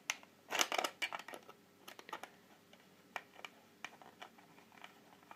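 Light plastic-and-metal clicks and taps from a small screwdriver undoing the battery-cover screw on the back of a toy drone's plastic remote controller while the controller is handled. A quick cluster of clicks about half a second in, then scattered single ticks.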